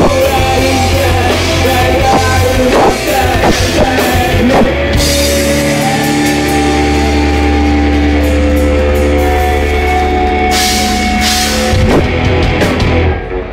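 Live rock band with electric guitars and drum kit playing the closing bars of a song: full playing for about five seconds, then a long held chord ringing out under drum and cymbal hits, ending with a final crash and cutoff near the end.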